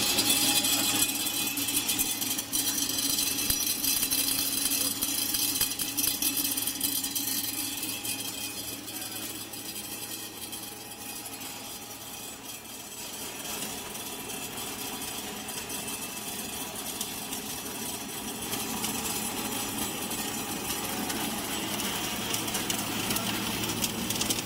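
Hot-air caramel popcorn coating machine with cooling bed running: a steady machine noise of constant low hum and dense high-pitched hiss. It is louder over the first several seconds, eases off in the middle and builds again toward the end.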